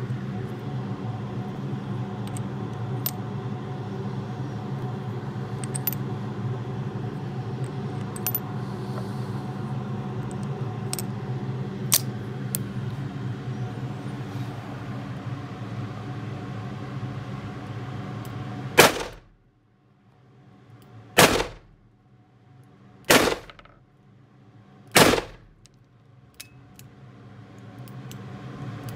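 Smith & Wesson Model 460V revolver in .460 S&W Magnum fired four times, about two seconds apart, in an enclosed indoor range. Before the shots, a steady low hum with scattered light metallic clicks as cartridges are loaded into the cylinder.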